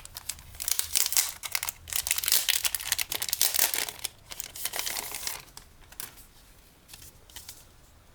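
An album's envelope packaging being opened by hand: crinkling and tearing, thinning out after about five seconds to a few light rustles.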